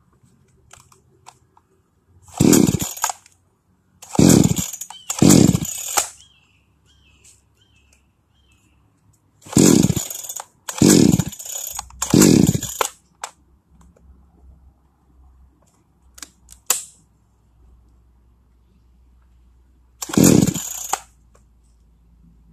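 Starter cord of a Salem Master Pro 6220H two-stroke chainsaw being yanked seven times: one pull, then two, then three, then a last one. Each pull is a short whirring zip that drops in pitch as the flywheel spins down, and the engine never catches.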